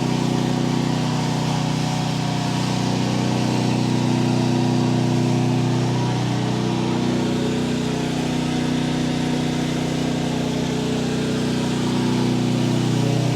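Small engine running steadily at a constant speed, with an even hiss over it.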